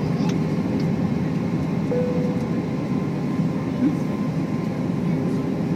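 Steady airliner cabin noise inside an Airbus A320 in flight: jet engines droning and air rushing past the fuselage, with a few faint steady tones over it.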